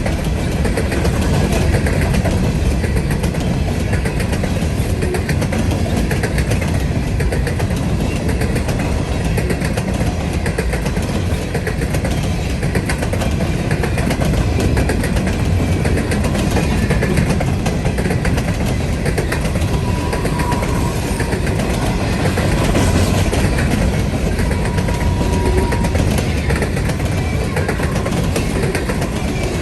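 Train rolling past on the rails, a steady loud rumble with wheel and rail noise.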